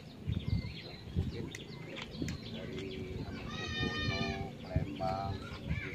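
An animal bleating: one long, level call about midway and shorter calls near the end, over low voices.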